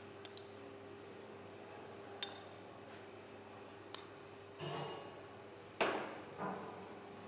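A few light clinks and knocks of a small steel spice cup against a glass mixing bowl and a stainless steel worktop, the loudest about six seconds in, over a steady low hum.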